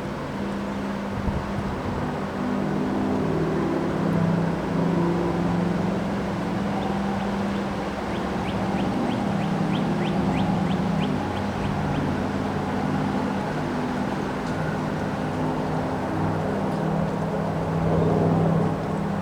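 Strong wind blowing in a windstorm, a steady low rumble with a shifting howling tone. A brief run of rapid high ticks, about four or five a second, comes about halfway through.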